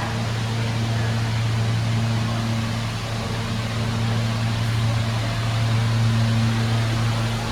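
Elevator car travelling upward in its shaft, heard from inside the car: a steady low hum over an even rushing noise. The hum cuts off near the end.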